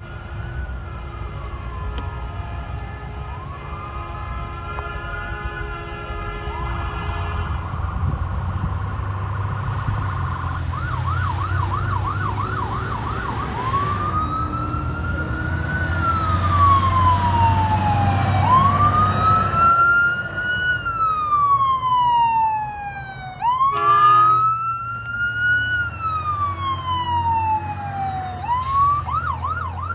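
Emergency-vehicle siren on a Florida Forest Service truck, mostly in a slow rising and falling wail, switching twice to a fast yelp: around the middle and again near the end. An air horn sounds steadily in the first several seconds. A heavy truck's engine rumbles underneath, loudest as the trucks pass about halfway through.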